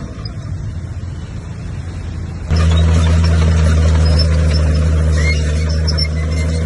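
Bulldozer's diesel engine running steadily with a low hum, jumping suddenly louder about two and a half seconds in.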